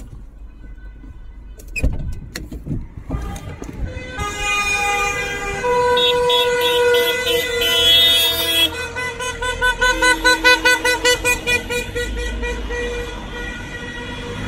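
Several car horns honking together at different pitches as a line of cars passes, over engine and tyre noise. Long blasts start about four seconds in, and a few seconds later come a quick run of short beeps, about four a second.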